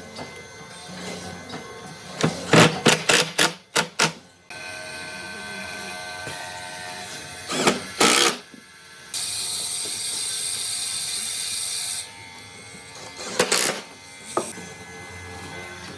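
Workshop sounds: a quick run of knocks, then a small power tool running steadily for several seconds, then a steady high hiss for about three seconds, and two more knocks near the end.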